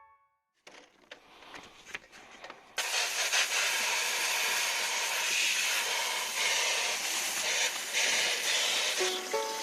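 Steady hissing spray from cleaning the split air conditioner: faint at first, then much louder and continuous from about three seconds in.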